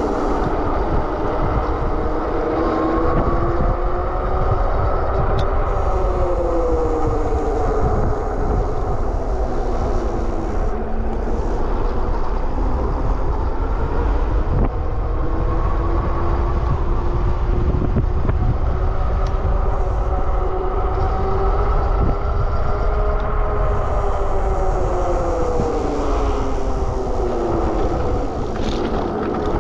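Super73 RX electric bike under way, its drive whine rising and falling in pitch as it speeds up and slows through the curves, with wind buffeting the microphone underneath.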